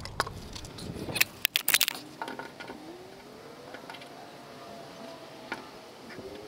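Loud knocks and rattling about a second in, then a few light metallic clicks of hand tools being handled at the gas tank's drain plug.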